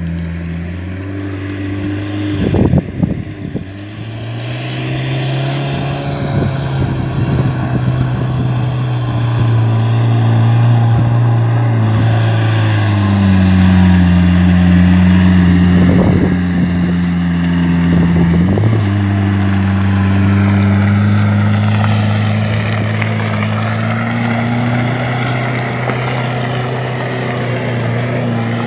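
1992 Toyota Hilux pickup's engine running under load while driving off-road, its pitch stepping up and down with the throttle, with a few knocks from the truck over rough ground.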